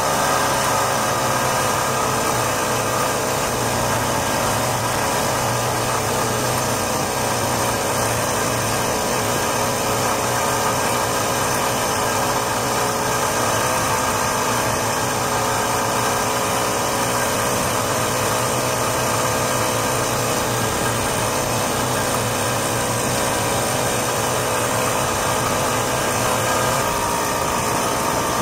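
1967 Ski-Doo Olympique's 250 cc single-cylinder two-stroke engine running steadily as the snowmobile travels along the trail.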